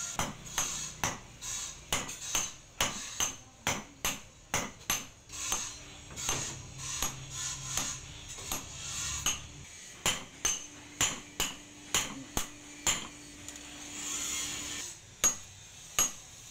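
Hand hammer forging red-hot blade steel on a post anvil: about two blows a second, each a sharp metallic clang, with a short pause a little before the end.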